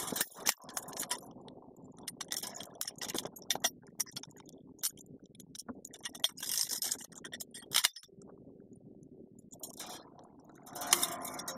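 Scattered light metallic clicks and clinks with some rustling, like fencing wire and hand tools being handled.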